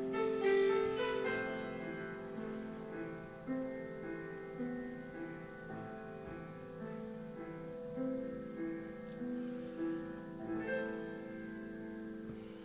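Background music: a slow piano melody of held notes.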